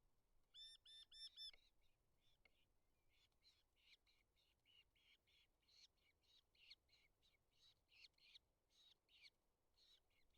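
Eurasian hobbies calling at the nest: a quick series of four ringing notes, each rising and falling in pitch, about half a second in, then a long run of rapid, thin, high calls.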